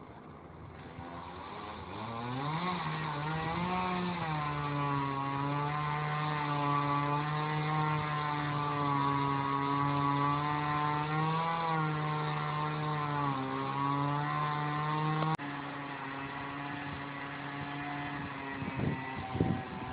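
Small gas engine of a handheld yard cutting tool revving up about two seconds in and running at high speed, its pitch wavering as it works. A click about fifteen seconds in, after which it runs a little lower and quieter.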